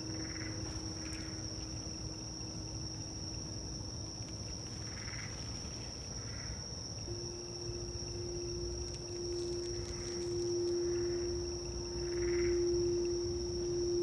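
Crystal singing bowl rubbed around its rim with a wand, giving a low, steady hum. The first tone fades over the first half; about halfway a slightly higher bowl tone starts and swells louder toward the end. Behind it a steady high-pitched cricket trill runs, and frogs call now and then.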